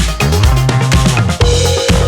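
Background electronic dance music with a steady drum-kit beat and bass line, and a held synth note from about one and a half seconds in.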